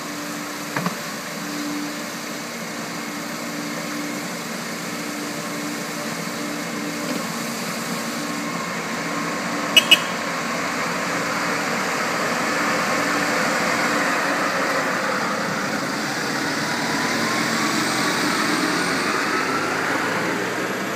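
Truck diesel engines running at idle with a steady hum, while a second truck drives past on the wet road and its noise swells through the second half. Two sharp clicks sound just before the middle.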